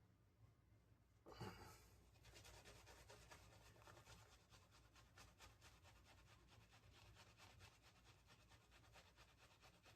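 Faint, fast wet scratchy strokes of a synthetic shaving brush working and painting soap lather, after a brief louder rustle about a second and a half in.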